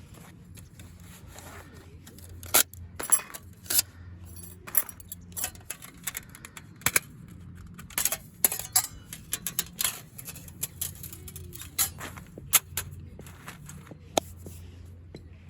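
Irregular sharp metallic clinks and clicks of small metal camping gear being handled.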